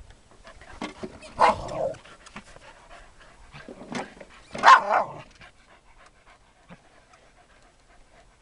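Heelers (Australian cattle dogs) panting, with two short, loud vocal outbursts about a second and a half and about four and a half seconds in.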